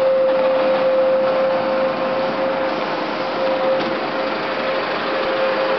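A steady mechanical hum with one constant mid-pitched tone over a loud, even hiss.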